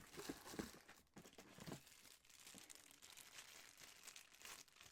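Faint crinkling and rustling of packaging being handled while parts of an espresso machine are unwrapped, busiest in the first couple of seconds.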